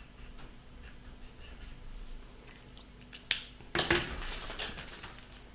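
Faint scratching of drawing strokes on paper as stars are drawn in an exercise book, with a sharp click about three seconds in and a louder rustling scrape just before four seconds.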